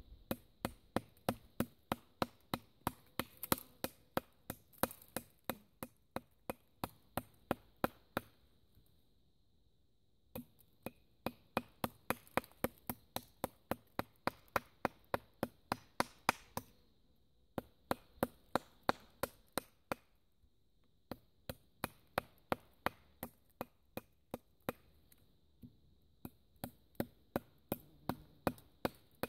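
Custom bushcraft knife chopping into a barked stick held upright on a stump: quick strokes at about three a second, in runs of several seconds with short pauses between.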